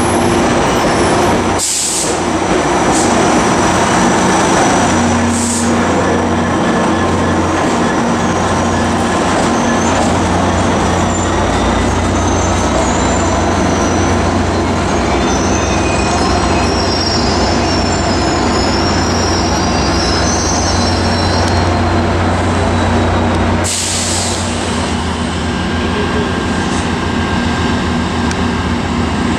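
Metrolink push-pull train rolling past on steel wheels with faint wheel squeal, then the EMD F59PHI diesel locomotive's engine droning steadily as it nears and passes. The sound changes abruptly about six seconds from the end to the steady rumble of other diesel locomotives across the tracks.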